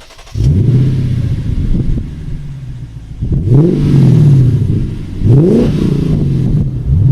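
Lexus RC-F's naturally aspirated 5-litre V8, with an aftermarket cat-back exhaust, fires up with a flare and settles to a loud idle. It is then revved three times, each rev climbing and dropping back.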